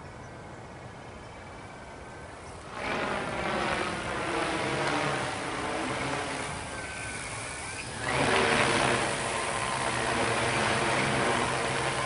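Large quadcopter's motors and propellers buzzing in flight: a steady hum of many even tones that grows louder about three seconds in, and again about eight seconds in.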